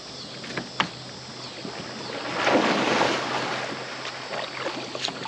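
Water splashing and sloshing, swelling louder about halfway through, with a few light knocks.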